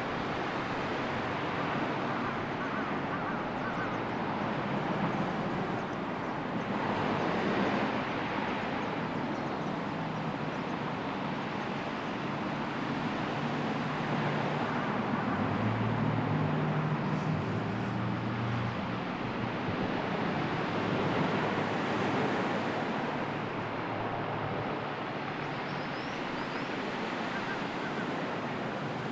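Sea waves washing on the shore under a strong wind, with wind buffeting the microphone; the surf swells and eases every several seconds. A faint low hum rises in the middle.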